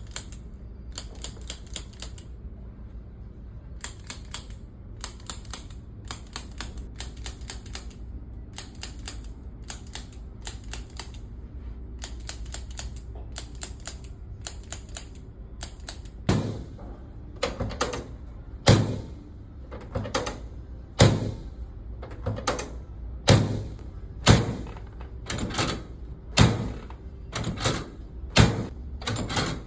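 Chiropractic adjusting instrument tapping. Quick clusters of sharp, typewriter-like clicks run for about the first half. About halfway in they give way to single harder clicks with a low thump, roughly one a second.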